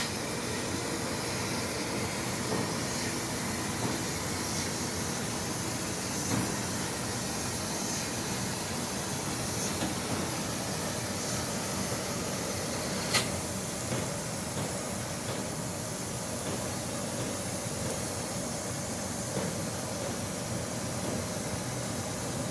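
Fiber laser cutting machine cutting 8 mm thick plate, with a steady hiss. There is a sharp click about thirteen seconds in.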